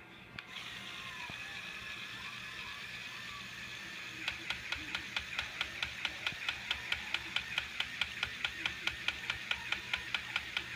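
LEGO Mindstorms EV3 motor whirring as it drives the Technic mechanism that raises a model race car's engine cover. From about four seconds in, the plastic gears also click rapidly and evenly, about four clicks a second.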